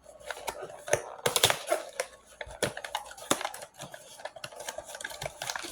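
Blind-box packaging being handled and opened: cardboard and plastic rustling and crackling, with many quick irregular clicks.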